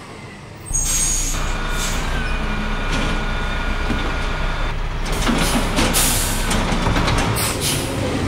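Garbage truck engine running, starting about a second in, with a few clanks and a loud hiss of air brakes a little past halfway.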